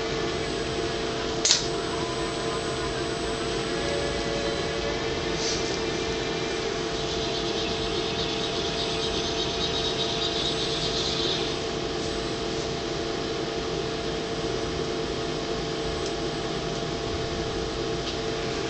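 Machinery of a robotic packaging cell running: a steady mechanical hum with a sharp click about a second and a half in, and a hissing whirr from about seven to eleven seconds in.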